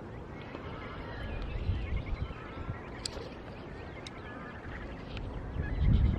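Small birds chirping and singing over a constant low rumble, with a louder low thump near the end.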